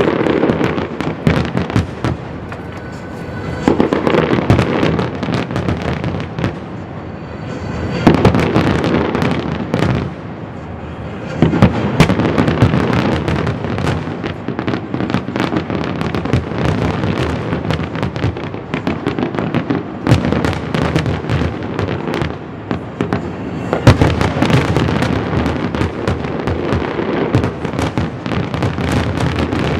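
Fireworks display finale: a dense, continuous barrage of shell bursts with bangs and crackling, easing off briefly a few times before building again.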